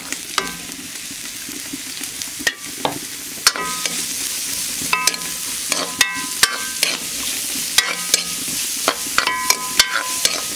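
Chopped onions and kanthari chillies sizzling in hot coconut oil in an iron kadai, with a steady hiss. A spatula is stirring them, and it scrapes against the pan several times with short ringing scrapes and clicks.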